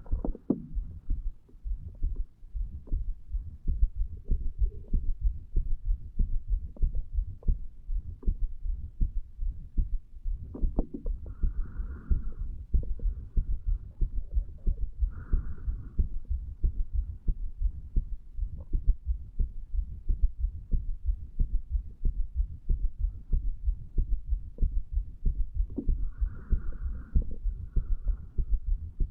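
A man's heartbeat picked up at the chest over the mitral valve area: a steady, even run of low thumps.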